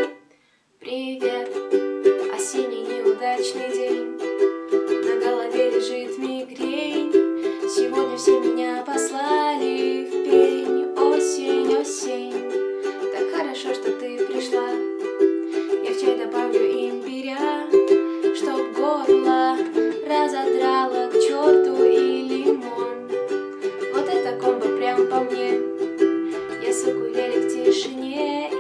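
Ukulele strummed in steady rhythmic chords. The sound drops out for under a second at the very start, then the strumming runs on without a break.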